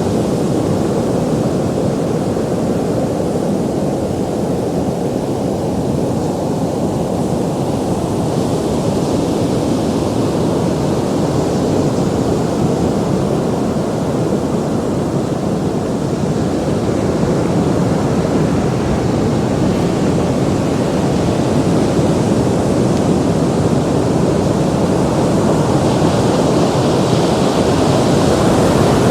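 Ocean surf: a continuous deep rush of breaking waves that swells and eases slowly, with more hiss as a wave breaks near the end.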